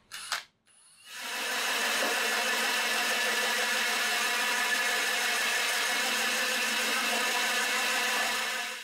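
Cordless drill turning a large hole saw through plywood: a loud, steady cutting whine at an even pitch that stops suddenly near the end. A brief sharp noise comes just before the cutting starts.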